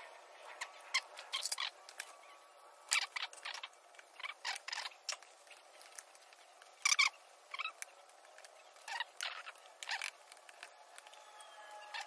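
Scattered crinkling, rustling and tapping of small plastic packets from a bumper repair kit being handled and torn open, in short irregular bursts.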